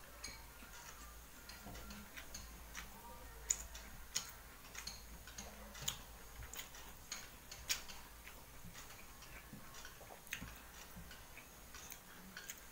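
Eating by hand from a steel plate: fingers mixing and scooping rice, with light irregular clicks and taps scattered throughout, the sharpest about three and a half seconds in.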